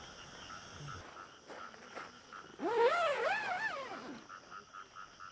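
Frogs calling: a soft call pulsing two or three times a second, with a louder call of wavering pitch for about a second and a half in the middle.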